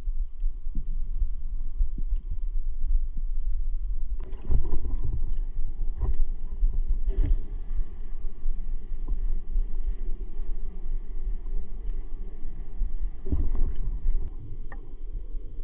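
Underwater sound picked up by a diver's camera: a steady, muffled low rumble of water, with a few sharp knocks and clicks scattered through it, the strongest a little after four seconds in.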